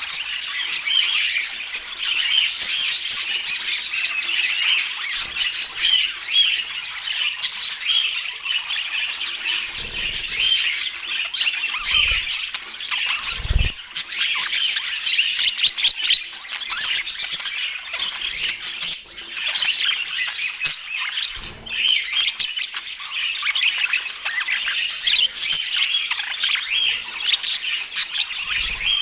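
Budgerigars chattering and warbling without pause, dense high chirps throughout, with a few short dull low bumps between about ten and fourteen seconds in and once more a little after twenty seconds.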